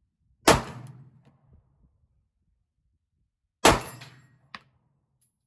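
Two 9mm shots from a Glock 43x pistol, about three seconds apart, each a sharp crack that trails off over about a second. A much smaller sharp click follows about a second after the second shot.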